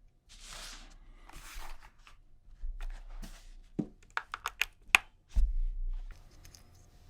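Handling noises: two soft brushing rustles, then a quick run of sharp clicks, about four or five a second, and a heavier thud with a short low rumble.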